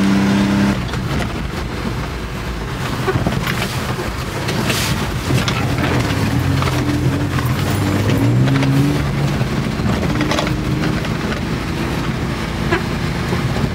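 Small 660cc three-cylinder engine of a 4x4 kei truck running as it drives along a snowy road, its pitch rising and falling with the throttle, over steady road and wind noise.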